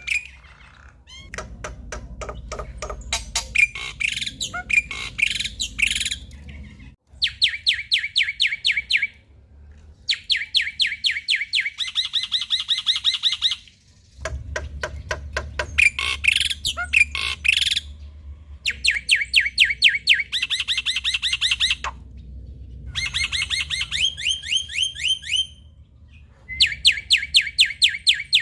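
Male black-winged myna (jalak putih) singing a full, busy song: repeated trains of rapid, evenly spaced chattering notes, each lasting a second or two, with short gaps between them and harsher squawking chatter in between.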